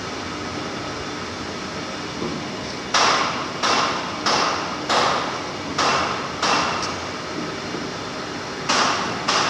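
Steady running noise of workshop machinery, broken by eight sharp metal strikes that start about three seconds in, come roughly every half second at first, and return as a close pair near the end, each with a short ring.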